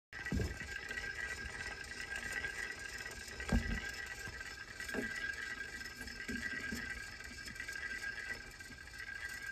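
Edison Standard cylinder phonograph mechanism running: a steady whir and hiss with a light rattle. A few soft knocks of handling, the loudest about three and a half seconds in.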